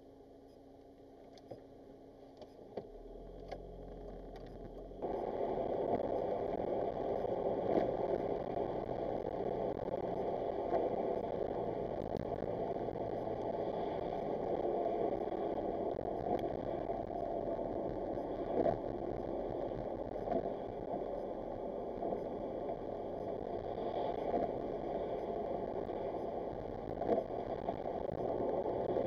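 Car interior road noise in heavy rain: a steady rushing of tyres on a wet road and rain on the windscreen, with scattered light clicks. It starts faint and jumps suddenly louder about five seconds in.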